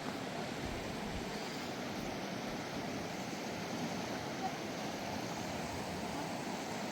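A river's flowing water rushing steadily.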